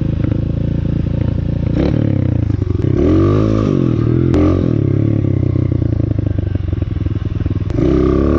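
A 125cc pit bike's single-cylinder four-stroke engine pulls away under the rider. The revs climb and drop several times about two to four seconds in, and rise again near the end.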